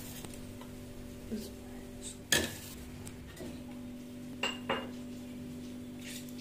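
Kitchen utensils clinking and knocking against a metal cooking pot, a few separate strikes with the loudest about two and a half seconds in and two ringing clinks near four and a half seconds, over a steady low hum.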